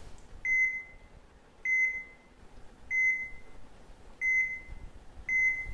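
Hospital heart monitor beeping steadily at one pitch, five short beeps about a second and a quarter apart, each marking the patient's heartbeat.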